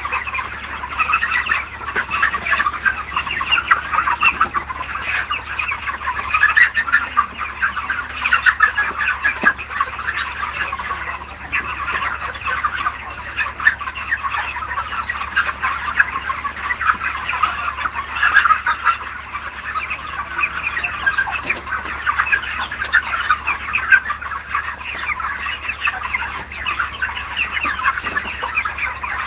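A large flock of chickens clucking and calling continuously, many birds at once, over a steady low hum.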